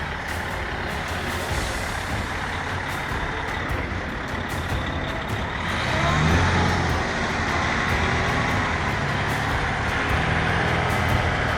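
Freightliner truck's diesel engine running under load in the snow, with a steady broad rushing noise. The engine revs up and gets louder about six seconds in.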